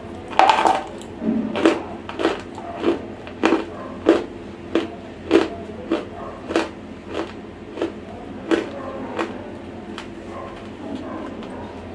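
Dry, semi-roasted clay chewed close to a lavalier microphone: a loud bite about half a second in, then regular crunches roughly every 0.6 s, about fourteen in all, giving way to softer chewing near the end.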